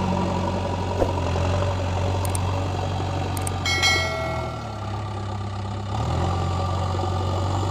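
JCB 3DX backhoe loader's diesel engine running steadily at idle. A short ringing clang sounds about halfway through, and the engine note dips for a moment before steadying again.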